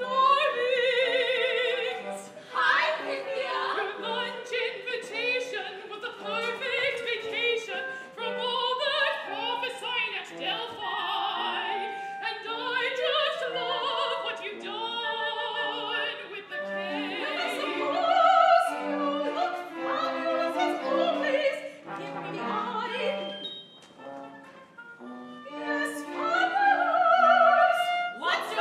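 A solo opera singer singing in English with vibrato over instrumental accompaniment.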